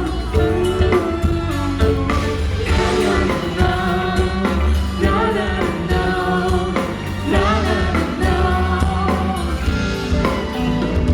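Live pop band music with singing.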